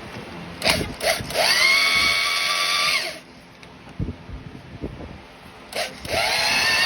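Power drill motor starting with a rising whine, running steadily for about a second and a half and stopping. A few light knocks follow, then it spins up again near the end.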